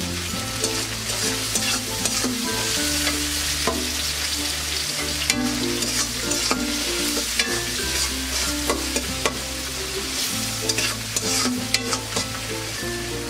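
Onions, beans, chillies and tomato sizzling in hot oil in a karahi while a spatula stirs them, with frequent clicks and scrapes of the spatula against the pan.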